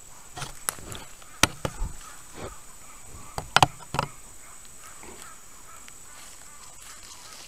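A jaguar brushing and bumping against a camera trap: a string of sharp knocks and scrapes on the camera housing, bunched in the first four seconds, over a steady high-pitched whine.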